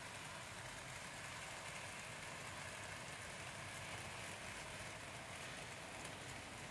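00 gauge model train running on its track: a faint, steady rushing noise of wheels and motor as the wagons roll past.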